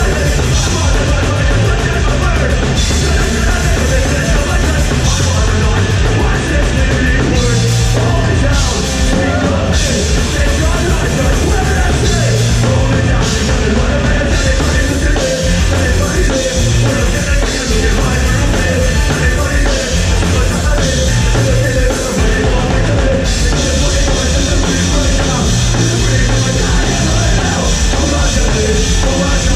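Punk rock band playing live and loud: electric guitar, bass and drum kit.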